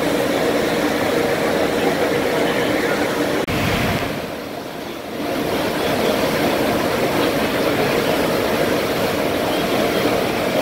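The churning propeller wake of the nuclear-powered Nimitz-class carrier USS John C. Stennis at full speed: a loud, steady rush of foaming water with a steady hum of ship's machinery underneath. The level dips briefly about four seconds in, then comes back.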